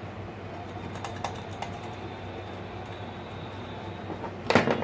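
Handling noise from working on the parts of an old loudspeaker: a few light clicks and knocks over a steady low hum, with a louder scrape about four and a half seconds in.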